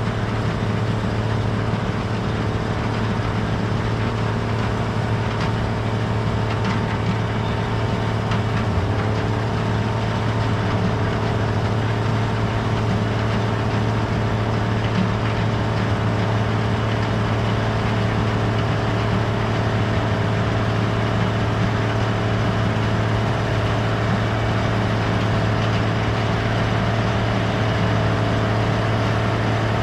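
Gleaner R72 combine running steadily while harvesting rye: a constant, even engine drone.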